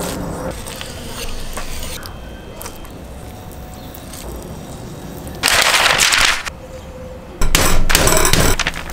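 Light knife work on raw flank steak on a cutting board, then two loud crackling bursts of about a second each from butcher paper laid over the steak and worked for pounding it flat with a wooden bat.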